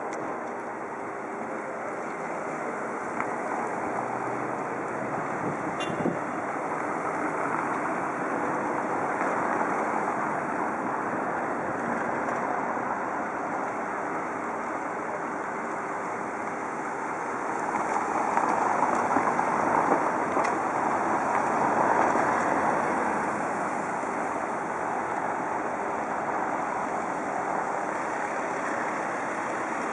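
City road traffic: a steady hum of cars and tyres passing on the street, swelling for a few seconds as a vehicle goes by close about two-thirds of the way through.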